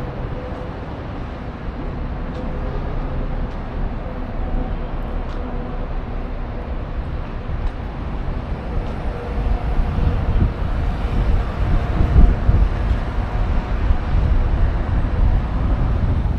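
Low rumble of street traffic, growing louder over the second half.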